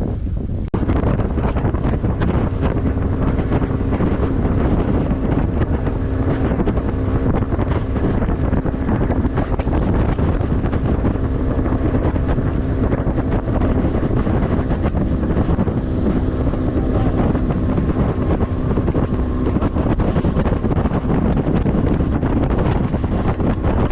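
Bass boat's outboard motor running steadily at speed, with wind buffeting the microphone. It starts a moment in and stays constant.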